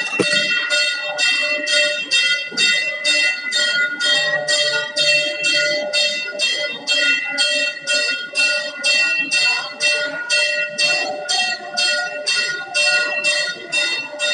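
Temple bell rung steadily, about two strokes a second, its metallic ringing tones sustaining between strokes.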